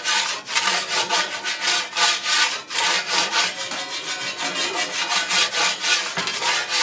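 Metal pizza peel scraping repeatedly against the oven's stone base and steel shelf in a fast run of short strokes, pausing briefly near the end.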